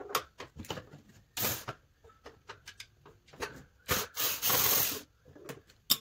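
Plastic end cap of a quartz space heater being worked loose and pulled off by hand: a run of clicks and knocks of plastic against metal, a short scraping rub about a second and a half in, a longer rub of about a second near the end, and a sharp click at the very end.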